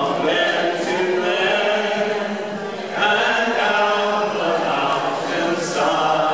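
A mixed group of men and women singing together in unison, in long held phrases, with a fresh phrase beginning about three seconds in and again near the end.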